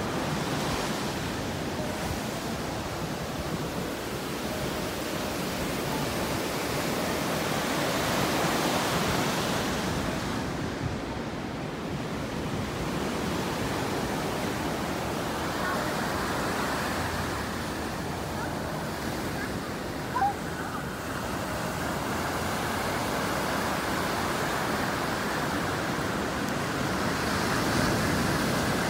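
Ocean surf breaking and washing up the beach: a steady rushing, with one short sharp click about twenty seconds in.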